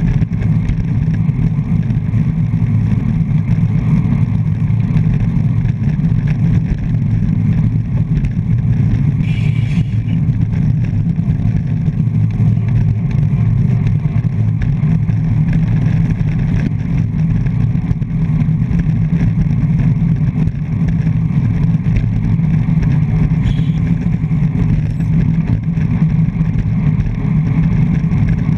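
Steady low rushing and buffeting of wind over a handlebar-mounted GoPro's microphone on a road bike riding at race speed in a pack. A brief higher-pitched sound comes about nine seconds in.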